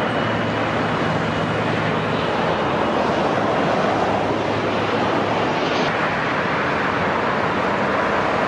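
Steady roar of open-air airfield ambience, a wide even rush, with a low hum in the first couple of seconds and a brief sharper sound about six seconds in.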